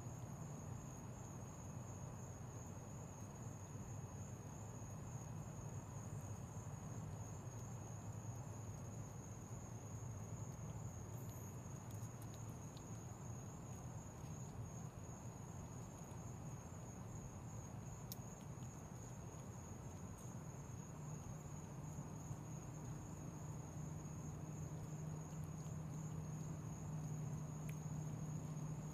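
Crickets trilling steadily at a high pitch in the night background, over a low hum. A few faint clicks are heard now and then.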